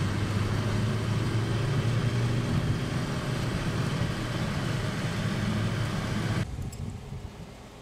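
Car driving, heard from inside the cabin: a steady low engine hum under road and tyre noise. It stops abruptly about six and a half seconds in, leaving a fainter steady hiss.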